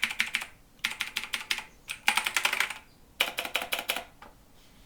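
Typing on a mechanical keyboard with clicky blue switches, each keystroke giving a click. It comes in four quick bursts of keystrokes with short pauses between them.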